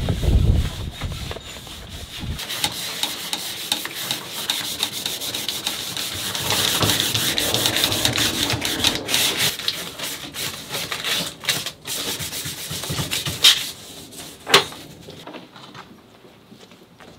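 Rough, continuous scraping and rubbing on a hard surface, with two sharp knocks near the end before it quietens.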